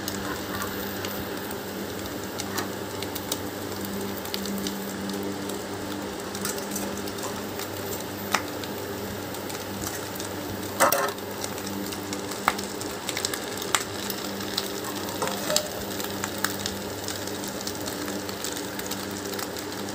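Oil sizzling and crackling faintly under banana leaves in a frying pan on a low flame, over a steady low hum, with a few sharp clicks; the loudest click comes about eleven seconds in.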